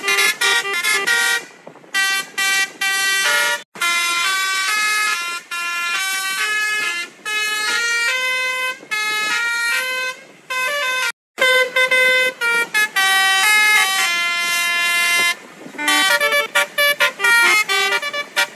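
Basuri, the Indonesian multi-tone bus air horn, played through a phone horn-simulator app: a quick melody of short horn notes. The tune breaks off briefly a few times as the app moves on to the next tune.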